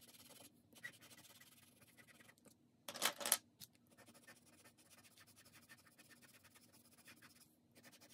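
Pastel pencil scratching faintly on Pastelmat pastel paper in many quick, short strokes as colour is laid down. About three seconds in there is a brief, louder scratchy rasp.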